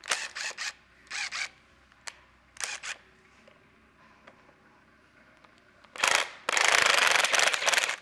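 Cordless impact driver on a long socket extension working the distributor hold-down bolt loose. It runs in a few short bursts, then a louder, longer run of about a second and a half near the end.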